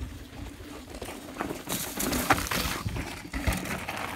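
A mountain bike and a running dog going past on a dry, rocky dirt trail: tyres crunching and scuffing over loose gravel, loudest about halfway through.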